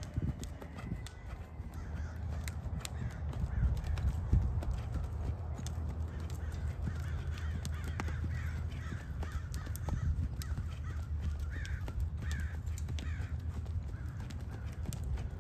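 A horse's hooves thudding on soft sand footing as it is ridden at a lope, with birds calling repeatedly in the background.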